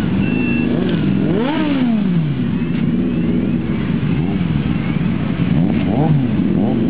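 A column of motorcycles riding slowly past at close range, several engines running at once and blipping their throttles, with one sharp rev rising and falling about a second and a half in.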